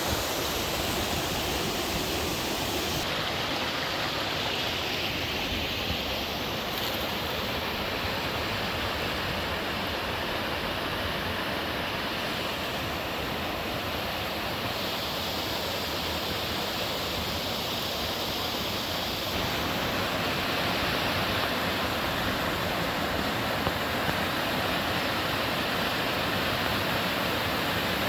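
Mountain-stream waterfall pouring steadily: an even rush of falling water whose tone shifts slightly a few times.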